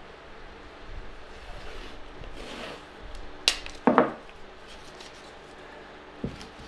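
Hands handling sign-making materials on a work table: light rubbing, a sharp click about three and a half seconds in, then a brief loud rasping screech, and a small knock near the end.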